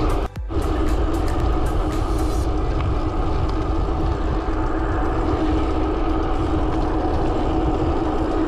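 Steady wind rush and tyre hum of a road bicycle rolling along a paved road at speed, picked up by a handlebar-mounted camera. There are sharp clicks and rattles in the first couple of seconds and a brief dropout about a third of a second in.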